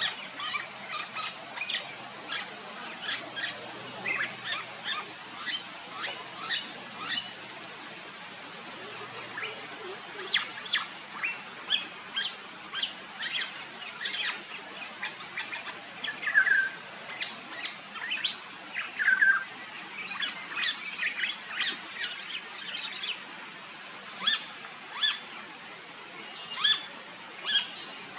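Birds chirping: a long run of short, sharp, high calls in quick succession, with a couple of brief lulls.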